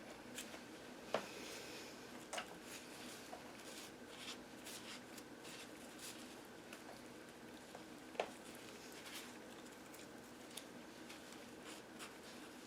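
Faint handling sounds of skinning a ruffed grouse: small tool clicks and soft scraping and rustling against the skin and feathers, with a few sharper ticks, over a faint steady hum.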